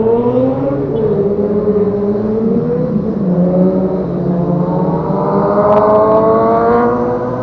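Motor vehicle engine accelerating, its pitch climbing steadily, dipping at gear changes about a second in and about three seconds in, then rising again.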